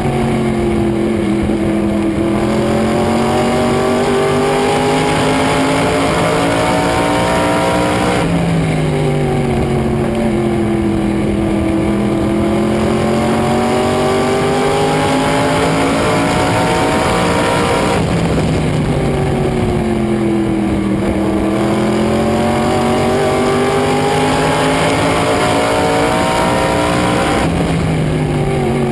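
A single race car engine running hard on a short oval, its revs dropping as it slows for a turn and then climbing as it accelerates out, three times over. The sound jumps abruptly between these stretches, twice.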